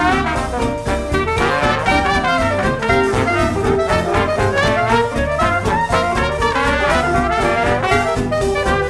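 Background music: an upbeat, jazzy piece led by brass horns, playing steadily.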